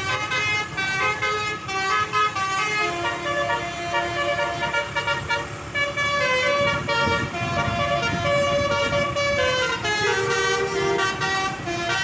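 Basuri telolet bus horn playing a dangdut melody: a continuous run of held horn notes stepping up and down in pitch, with a low rumble beneath.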